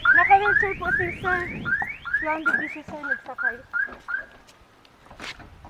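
Car alarm siren cycling through its tones: fast repeated rising whoops, then a few falling warbling notes, cutting off about four seconds in.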